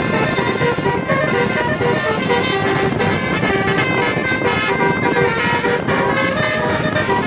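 Bus 'telolet Basuri' musical air horn playing a tune of short held notes that step from pitch to pitch, over steady bus engine and traffic noise.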